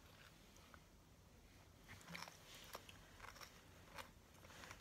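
Faint eating sounds: quiet chewing, with a few small clicks in the second half, over near silence.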